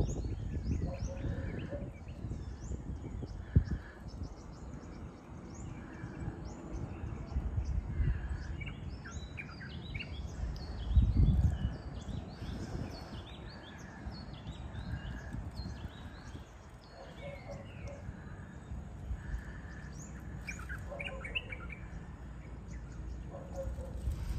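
Several birds chirping at sunrise, with one call repeated about once a second, over a low rumble that swells briefly partway through.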